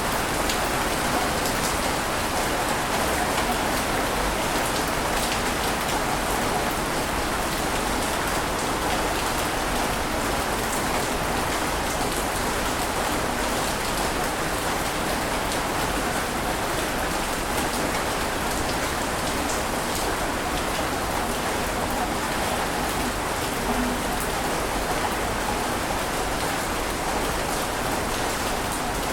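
Steady, even rushing water noise with fine scattered ticks in the hiss, holding level without any rise and fall.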